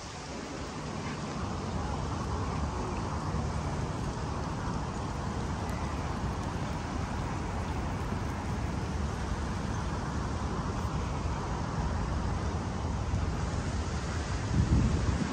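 Steady outdoor ambience: an even wash of noise with a low rumble, like distant road traffic, and a brief low bump near the end.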